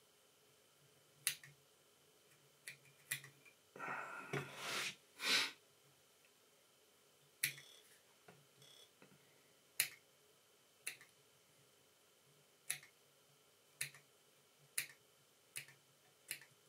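Small fly-tying scissors snipping, a series of sharp single clicks about once a second through the second half, trimming the waste ends of the wing hair on a tube fly. A short rustling burst comes about four seconds in.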